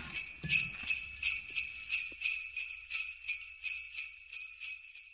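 Brass jingle bells on a leather strap hanging from a door handle, jingling in a steady swing of about three shakes a second and dying away as the strap comes to rest.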